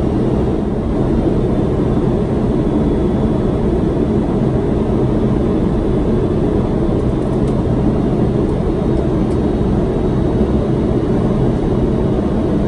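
Steady, loud rush of airflow and engine noise inside a Boeing 767-300's flight deck in flight on approach to land, deep and even, with a faint steady hum above it.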